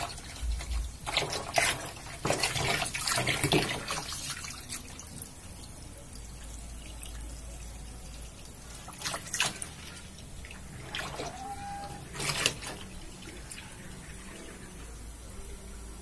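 Water from a garden hose pouring into the tub of a National washing machine, filling it, with a few louder splashes and knocks.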